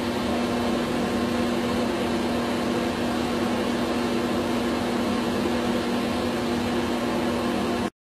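Small fan motor running steadily: an even whoosh with a steady low hum, cutting off suddenly near the end.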